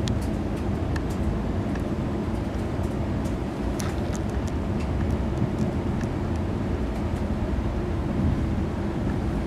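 Cabin noise inside a moving ICE high-speed train: a steady low rumble, with a few faint light ticks around the middle.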